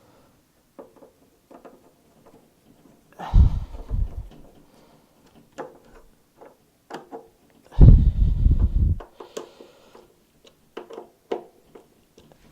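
Small clicks and clatters of screws and a steel carry handle being fitted and tightened onto a steel fridge body. There are two louder, deep rattling knocks about three seconds in and again about eight seconds in.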